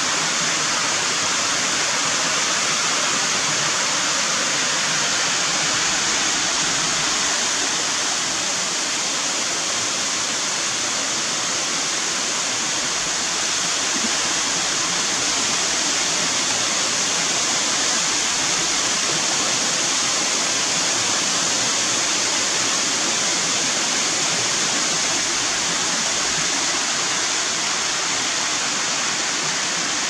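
Small waterfall pouring over a stepped rock ledge into a pool, a steady rush of falling water.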